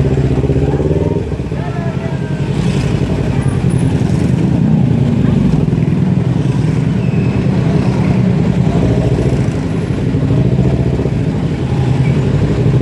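Kawasaki Ninja 250Fi parallel-twin engine running through a Scorpion full-system exhaust without its dB killer, idling steadily with a brief dip in loudness about a second in.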